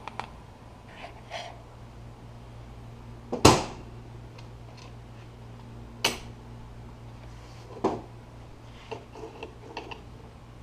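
A few sharp knocks and clicks of objects being handled, the loudest about three and a half seconds in and others near six and eight seconds, over a steady low hum.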